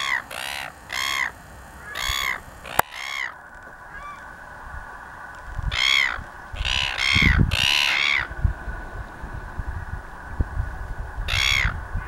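Red-billed gulls calling: harsh, repeated squawks, a quick run of about five in the first three seconds, another run of four between about six and eight seconds in, and a single call near the end.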